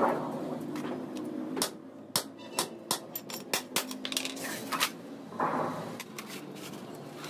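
Sheet-steel work: a quick, irregular run of sharp metallic knocks and taps, about a dozen, bunched in the middle seconds, with a brief rasp near the end.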